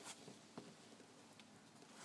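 Near silence, broken by a few faint light taps and rustles from a sneaker box and its packaging being handled.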